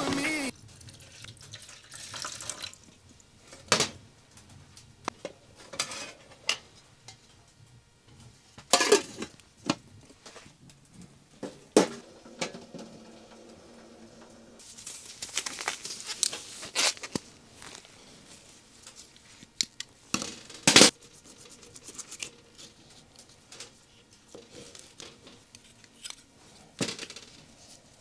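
Metal cookware being handled: a stainless steel mess tin and its wire handle clinking and knocking on a wood stove, about a dozen separate sharp clacks spread out with soft rustling in between.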